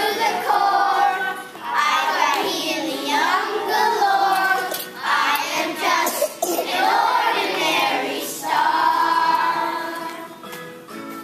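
Children singing a song together, with long held notes; the singing tails off near the end.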